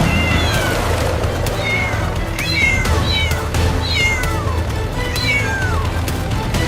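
Cat meowing repeatedly: about eight short, high calls, most falling in pitch, over background music with a steady low bass.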